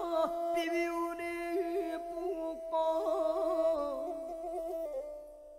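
Music: a steady held drone under a sliding, ornamented melody line, fading down near the end.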